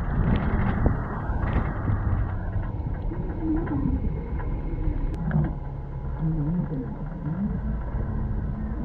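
Steady low rumble of a double-decker trolley bus driving, heard from its open top deck with wind buffeting the microphone. A sudden hiss starts right at the beginning and fades out over about two seconds.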